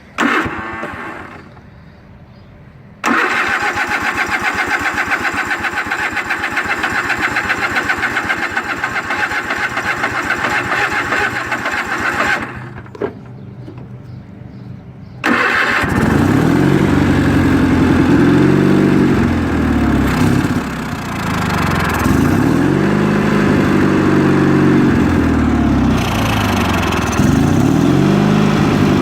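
Car engine cranking for several seconds, then starting after a short pause and being revved up and down repeatedly.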